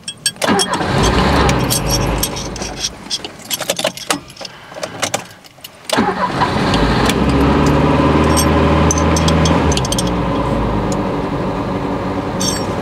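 An old Ford car's engine is cranked on the starter for about five seconds, then catches about six seconds in. It revs briefly and settles into a steady idle. This is a first start after standing in a barn, on a freshly fitted battery.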